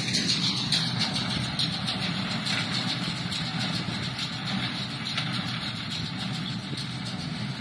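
Tractor pulling a small square hay baler through an alfalfa field, its engine running with a steady hum.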